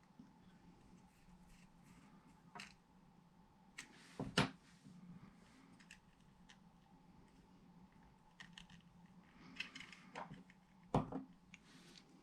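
Handling of a small plastic remote control: scattered light clicks, with two sharper knocks about four seconds in and again near the end, over a faint steady hum.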